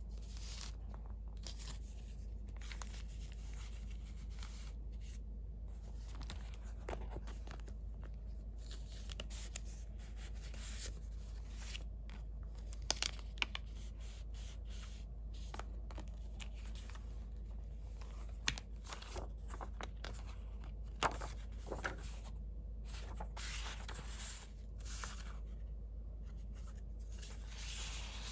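Paper and card rustling and sliding as hands pull tags, cards and sticker bundles out of the pockets of a handmade junk journal and leaf through them, with a few sharp little clicks around the middle.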